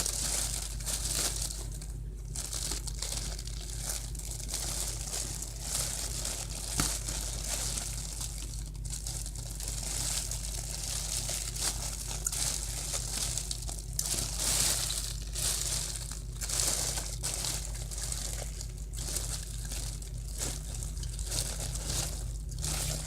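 Crinkly plastic wrapping on an Easter basket rustling and crackling as it is handled and pulled open, over a steady low hum.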